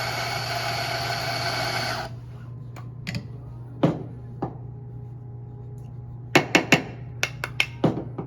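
Espresso grinder motor running as it grinds a dose of beans, cutting off abruptly about two seconds in. Sharp knocks and clicks follow, several in quick succession near the end.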